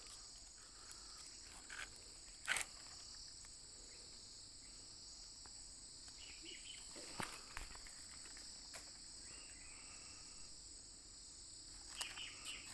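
Steady high-pitched insect chorus of a tropical forest, with a few sharp clicks, the loudest about two and a half seconds in.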